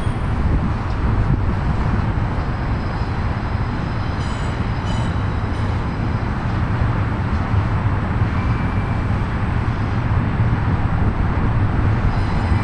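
A Union Pacific double-stack container train's cars rolling past with a steady rumble of wheels on the rails. Faint high-pitched squeals come in now and then.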